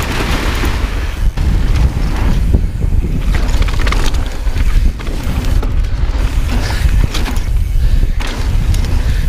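A downhill mountain bike running fast over rough trail: heavy wind rumble on the microphone, with the rattle and sharp knocks of the bike hitting rocks and roots several times.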